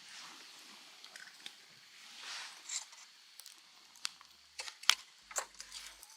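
Scattered light clicks and soft rustling, with a louder swell of rustling about two seconds in. Background music starts about five seconds in.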